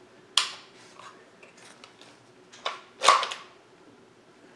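Sharp mechanical clacks from the action of a Hatsan Blitz .30 PCP air rifle being worked by hand: one about half a second in, then two close together near three seconds in, the second the loudest with a short ring, plus light ticks between.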